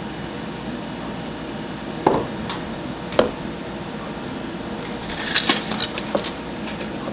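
A few sharp clicks and knocks of small hard parts being handled, with a small cluster of quick ticks about two-thirds of the way in, over a steady background hiss.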